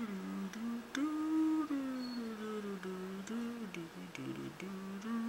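A person humming a tune, with notes that step up and down and some held for about a second.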